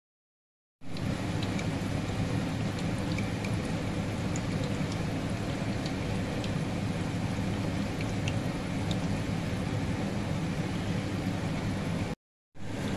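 Urad dal fritters sizzling as they deep-fry in hot oil in a pot: a steady low rush with scattered small crackles and pops. It starts about a second in and drops out briefly near the end.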